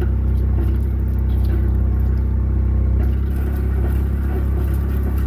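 Kubota engine running steadily under load as it drags a strand of old fence wire; the pull is hard.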